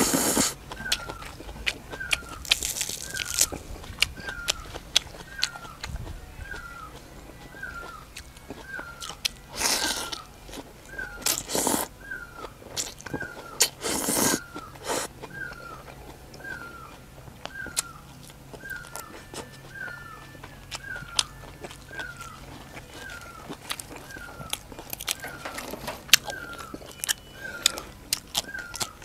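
A person slurping rice noodles and chewing a papaya salad, with several loud sucking slurps and small wet mouth clicks. Behind it an animal's short chirping call repeats about once a second.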